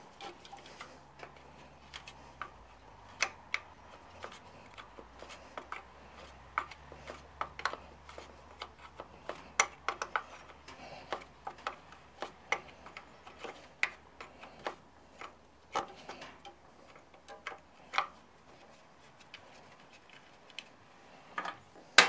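Ratchet wrench clicking as a nut is loosened on a riding mower's engine: sharp metal clicks at an uneven pace, one to three a second, with pauses.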